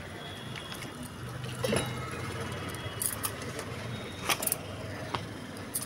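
Hands mixing flour dough in a steel bowl, with bangles clinking sharply against the bowl about five times, over a steady low hum.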